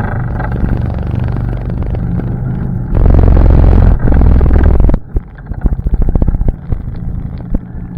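ATV engine running on a trail, its throttle picking up about three seconds in and dropping off sharply about five seconds in. After it drops off, a quick run of knocks and rattles.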